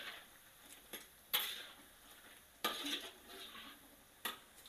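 A utensil scraping and knocking against a wok while stirring battered pork belly frying in oil: about five strokes, roughly a second apart, each followed by a brief hiss of frying.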